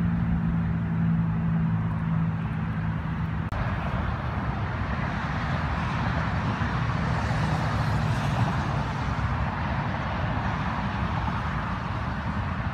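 A low, steady engine hum that cuts off abruptly about three and a half seconds in, followed by a steady rushing background noise of road traffic.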